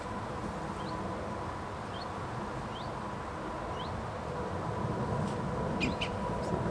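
Outdoor riverbank ambience: a steady low rumble and a faint steady tone, with a small bird's short rising chirp repeated about once a second. A few light clicks come near the end.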